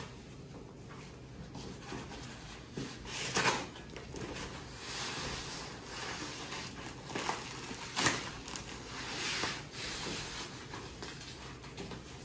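Roof rack parts being handled and shifted about: rustling and scraping with a few sharp knocks, the loudest about three and a half and eight seconds in.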